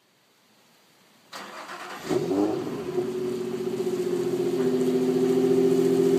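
Infiniti G35's 3.5-litre VQ V6, fitted with Motordyne Art Pipes and the stock exhaust, cold-starting at the exhaust tip: the starter cranks briefly about a second in, the engine catches with a short flare of revs, then settles into a steady fast cold idle.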